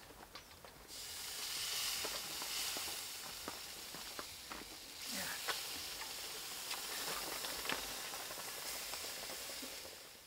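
A hot stone lowered with metal tongs into liquid in a steel bowl, sizzling and hissing as it boils the liquid into steam. The hiss starts about a second in, swells again about halfway, then slowly dies down, with small crackles and clicks throughout.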